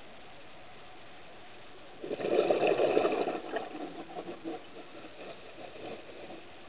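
Scuba diver's exhaled regulator bubbles, heard underwater: a sudden burst of bubbling about two seconds in that trails off into smaller gurgles over the next few seconds, over a steady faint hiss.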